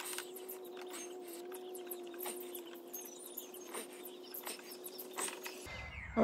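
Small scattered clicks and rustling of fingers and long-nose pliers working thin wires, twisting them together. Underneath runs a faint steady hum that cuts out near the end.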